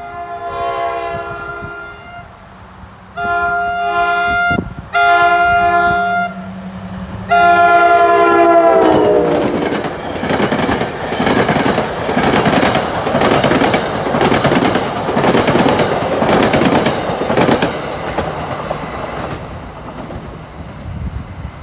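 Commuter train's multi-chime air horn sounding four blasts as it approaches, the last one sliding down in pitch as the train passes. Then the coaches rush by with a fast clickety-clack of steel wheels over rail joints, which stops suddenly near the end.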